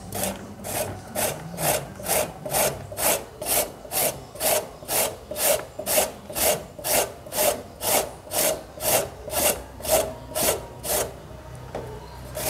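Raw green papaya being shredded on a hand grater-shredder: a rasping scrape about twice a second, in a steady rhythm, stopping about a second and a half before the end.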